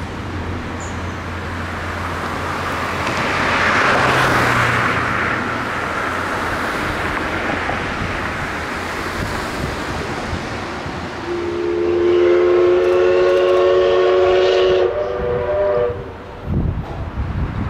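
Steam whistle of the C61 20 steam locomotive, one long blast of about four and a half seconds, over a steady low rumble. A swell of rushing noise rises and fades about four seconds in.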